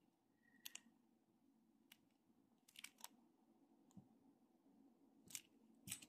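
Near silence with a few faint, scattered clicks of agate and glass beads and small stone carvings knocking together as they are handled and set down.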